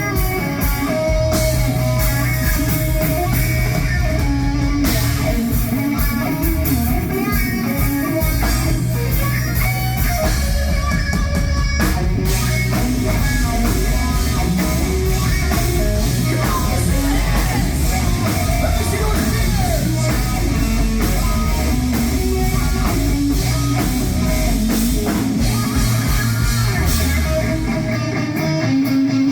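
Rock band playing, with electric guitar over bass and drums. Near the end the bass and drums drop out, leaving the guitar.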